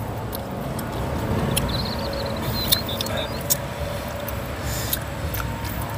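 Mouth sounds of people eating with their hands: chewing with a few sharp lip smacks, over a steady low rumble. A faint high chirping wavers briefly around two to three seconds in.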